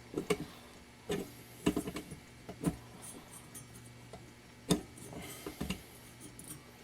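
Irregular metallic clicks and knocks of a wrench working a rust-crusted nut on the fan shaft of a halogen oven head, with one louder knock about two-thirds of the way through.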